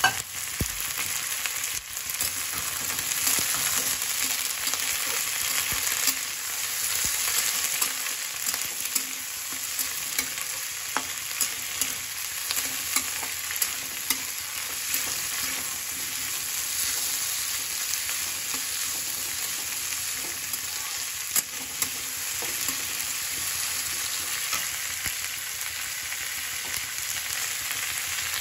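Sliced onions and green peas sizzling in hot oil in a kadhai, with a steady hiss. A metal spatula stirs them, its scrapes and taps on the pan coming as short sharp clicks throughout.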